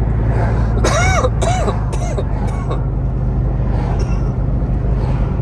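Steady low road and engine rumble inside a moving car's cabin. About a second in, a person makes four short vocal sounds in quick succession.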